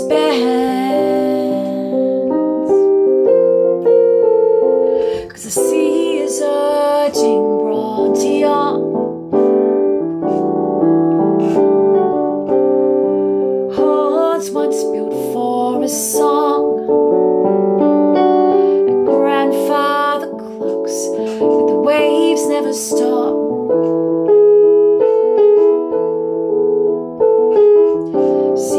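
A woman singing her own song over piano accompaniment that she plays on a keyboard; the sung lines come and go between stretches of piano.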